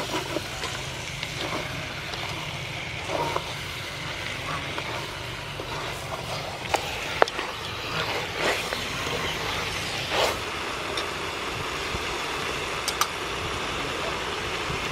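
Wooden spatula stirring chicken pieces in curry paste in a large aluminium pot, over a steady frying hiss, with a few sharp knocks of the spatula against the pot.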